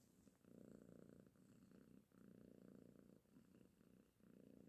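Domestic cat purring faintly, a low rapid rumble that swells and dips in cycles of about a second with each breath.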